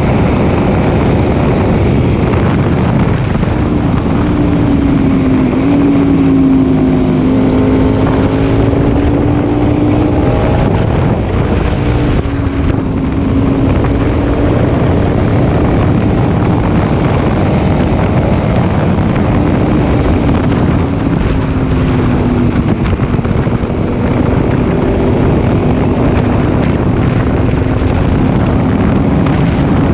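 Aprilia Tuono 1000R's 60° V-twin engine running at fairly steady revs at road speed, with slight dips in pitch a couple of times. Heavy wind rush on the microphone.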